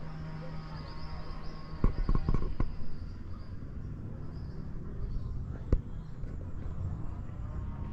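Someone climbs through dense tree branches and undergrowth. There is a cluster of knocks and cracks about two seconds in and a single sharp snap near six seconds, over a faint high-pitched insect trill in the first half.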